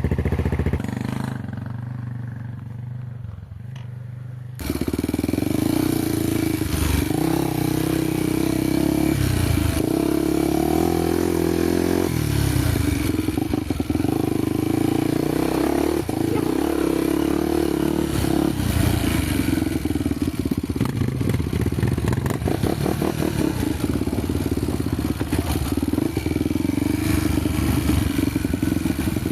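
Honda trail motorcycle engine running, then opened up about four and a half seconds in, jumping much louder and staying under throttle, its pitch rising and falling.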